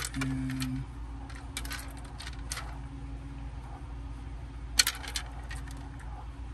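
Small hard plastic clicks and taps as action figure parts are handled and snapped into place, loudest in a quick pair near the end. A brief low buzz sounds at the start.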